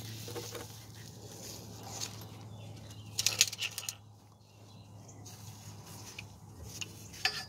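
Light clicks and clinks of a phone camera and hand tools being handled on a concrete floor under a car: a quick cluster about three seconds in and one sharp click near the end, over a steady low hum.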